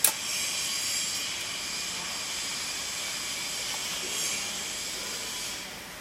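Steady hiss with faint, thin high tones running through it, opened by a sharp click.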